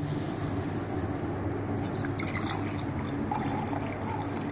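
Chicken stock (yakhni) trickling from a plastic bowl into a small steel tumbler as it fills, over a steady low hum.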